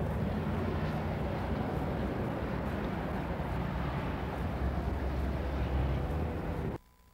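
Steady rumble of city street traffic, a low wash of engines and tyres, which cuts off abruptly near the end.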